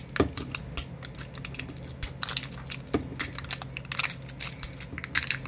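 Plastic toy packaging being handled and picked open by hand: a quick, irregular run of small clicks and crinkles.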